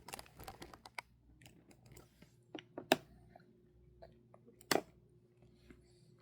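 Mealtime eating sounds as a small child is fed: small crunchy clicks and chewing, then a few sharper knocks in the middle.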